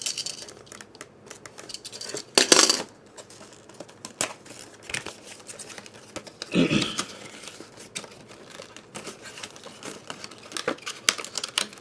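Packaging being cut open and torn off a puzzle box: crinkling plastic with scattered small clicks and rustles, and two louder rips, about two and a half seconds in and again near the middle.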